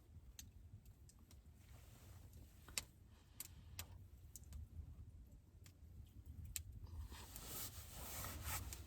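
Campfire burning faintly with scattered sharp crackles and pops, and a soft rustling hiss swelling near the end.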